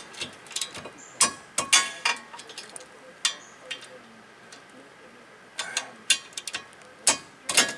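Irregular sharp metallic clinks and clicks of hand tools at a car's front disc brake, as a 17 mm wrench or socket is handled and fitted to the caliper bracket bolts.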